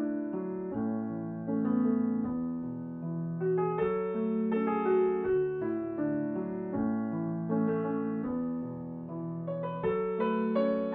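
Slow piano music, with notes and chords struck and left to ring.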